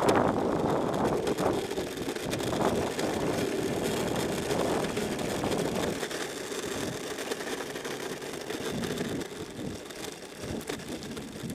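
Loud wind noise buffeting the microphone while riding a Mellow Drive electric skateboard, a gusty rush that eases in the second half as the board slows.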